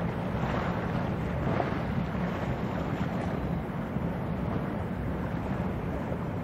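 Steady low rumble and hiss of wind buffeting the microphone over choppy sea water, with the wash of a passing small general cargo ship.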